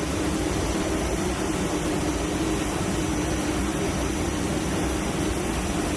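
Aircraft engines running steadily, a constant rushing noise with a steady hum underneath.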